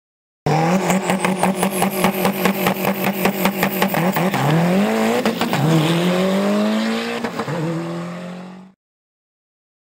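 1990 AWD turbo DSM's turbocharged 4G63 four-cylinder engine running hard under acceleration, with a rapid pulsing at first. The pitch then climbs and drops back twice, as in upshifts, before holding steady and fading out near the end.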